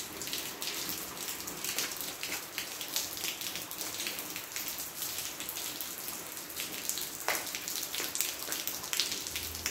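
Gentle rain falling steadily, with the close patter of many separate drops splashing on concrete paving and garden stones.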